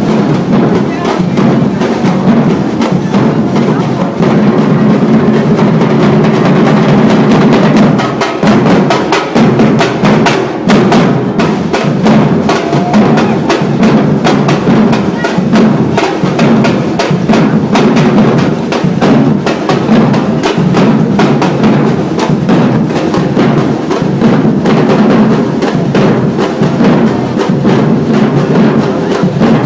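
Percussion ensemble playing a fast, steady drum groove: deep bass drums under dense, sharp wood-block-like strikes.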